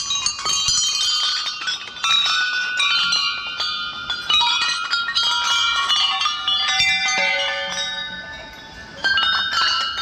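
Many hanging brass temple bells struck one after another by hand, their ringing tones overlapping in a dense jangle. Fresh strikes come about two, four and nine seconds in, and the ringing dies down just before the last.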